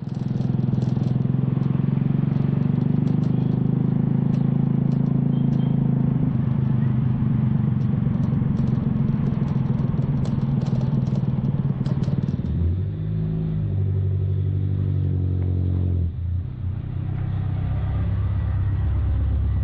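Motor vehicle engine running on the move, with light clattering over the first part. About two-thirds of the way through the engine note drops and steps in pitch, as when slowing and changing gear.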